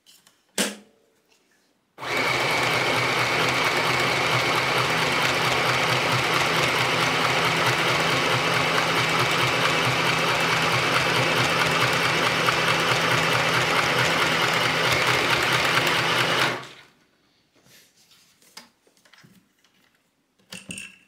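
Easymaxx compact sewing machine running steadily, stitching through thick denim. It starts suddenly about two seconds in, runs for about fifteen seconds, then winds down and stops.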